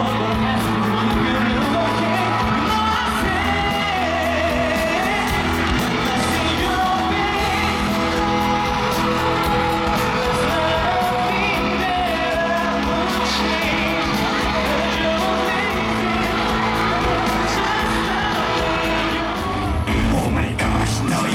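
Live pop music with a lead singing voice, played loud over a concert venue's sound system, with yells and whoops from the crowd mixed in.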